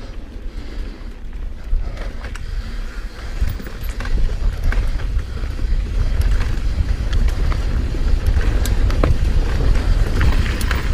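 Wind rushing over a GoPro microphone as a Giant Trance mountain bike rides fast down a dirt singletrack, its tyres rolling over dry leaf litter, with scattered clicks and rattles from the bike. The rush grows louder about three to four seconds in as speed builds.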